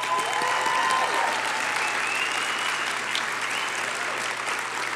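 Audience applauding steadily after an award winner is named. The applause swells in just before this point.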